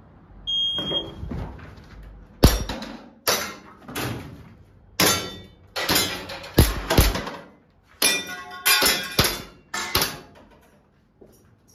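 Shot timer's start beep, then a rapid string of airsoft pistol shots with BBs clanging on small steel plate targets, some of them ringing briefly. The first shot comes about two seconds after the beep, and the last about ten seconds in.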